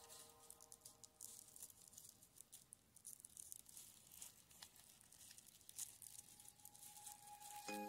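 Faint rustling and crinkling of crepe paper being handled. Soft background music fades out about a second in and comes back near the end.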